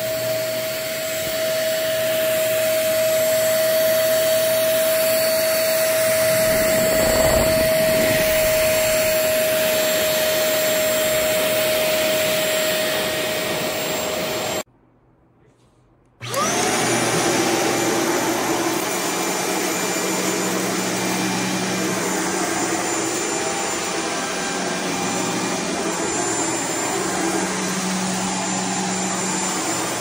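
Shark HZ600C Ultralight Pet Pro corded stick vacuum running, a steady motor rush with a high whine. About halfway through it cuts out for a second and a half, then starts up again with a quick rise and runs on with a noisier, different tone.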